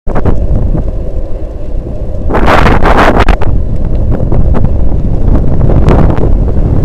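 Wind buffeting the microphone of a bicycle-mounted camera while riding, a loud low rumble that surges in a stronger gust a little over two seconds in, with scattered light clicks.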